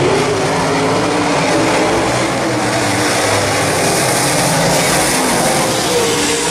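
Dirt late model race cars' V8 engines running hard as the field laps the dirt oval. The sound is loud and steady, with engine notes slowly rising and falling as the cars go through the turns.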